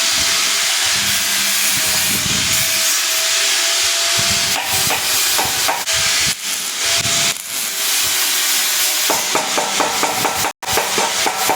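Electric arc welding: a loud, steady crackling hiss from the arc. Near the end it turns into a run of quick ticks and cuts out completely for a split second.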